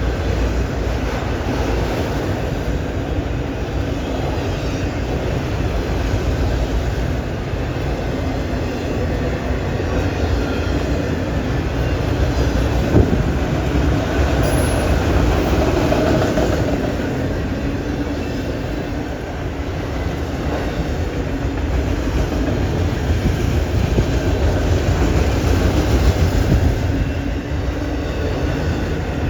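Freight train cars rolling past, a steady run of steel wheels on rail, with one sharp knock about 13 seconds in.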